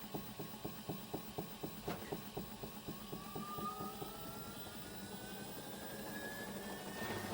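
Hyundai WME8410 washing machine in its spin cycle: a rhythmic knocking, about four to five knocks a second, that fades out after two or three seconds while the motor's whine rises steadily in pitch as the drum speeds up. The knock is the foreign noise that appears in spin before the drum reaches top speed and disappears at full speed.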